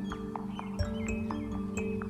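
Background music: soft mallet-like notes over steady sustained tones.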